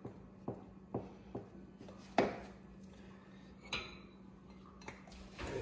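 Wooden spoon stirring thick rice pudding in a metal pot, knocking lightly against the pot and the wire strainer: soft taps about two a second at first, then a louder knock about two seconds in and another near four seconds. A faint steady hum runs underneath.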